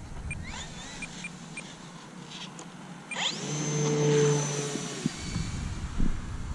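Electric motor and propeller of an E-flite Timber Turbo RC plane throttling up: about three seconds in a whine rises quickly, holds steady for about two seconds, then eases off.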